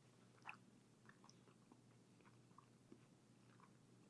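Faint chewing: soft, scattered mouth clicks of a person eating lo mein noodles, the most distinct about half a second in.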